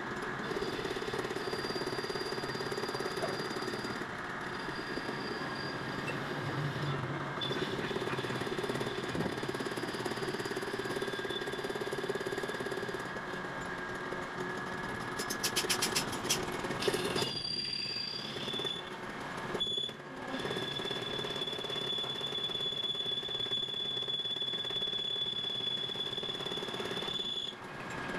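Workshop machinery running steadily, with a high whine over a lower hum, and a quick run of clicks about halfway through.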